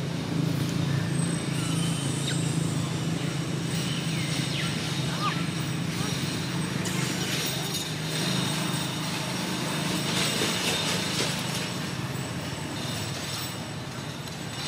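A steady low engine hum, like a motor running nearby, with a few short, faint high squeaks or chirps over it.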